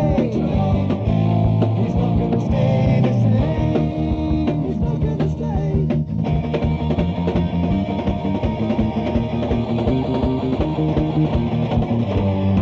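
Heavy metal band playing from a 1981 cassette demo recording, with electric guitars, bass and drums driving on and a few held notes over the top.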